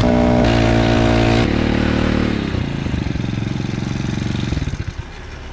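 Small engine of a motorized bicycle running at a steady speed, then slowing about a second and a half in and dropping to a low, uneven idle with separate firing pulses, before shutting off near the end.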